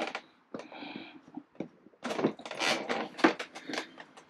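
Small hardware and tools being handled: a brief scraping rustle about a second in, then a run of irregular clicks and knocks.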